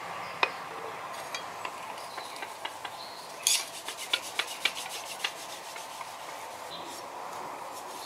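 A cloth rubs and scrubs over a forged steel cleaver blade resting on an anvil, in a quick run of strokes from about three and a half to five seconds in. A single sharp knock sounds about half a second in.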